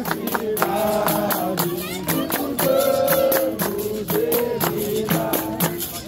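Capoeira roda music: a group singing over pandeiro, berimbau and steady hand clapping, with sharp beats a few times a second.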